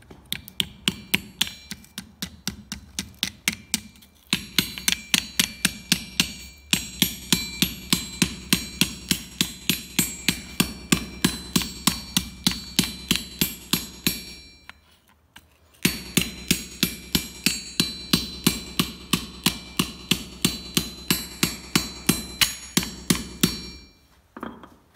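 Hand hammer forging a red-hot iron pike head on a swage block, about three quick blows a second, each with a metallic ring. There is a break of about a second just past halfway, and the hammering stops shortly before the end.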